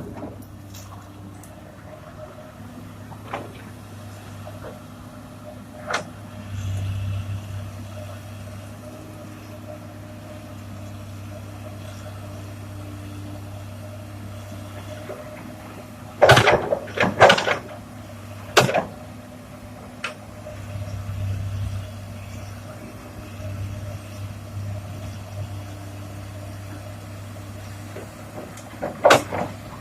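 Komatsu PC200 hydraulic excavator's diesel engine running steadily while working stone. A cluster of loud clattering impacts of rock on steel comes about halfway through, and another near the end.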